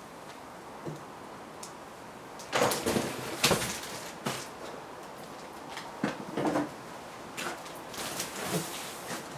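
Irregular knocks, scrapes and clatters of parts being handled during unboxing and assembly, loudest in a cluster about two and a half to three and a half seconds in.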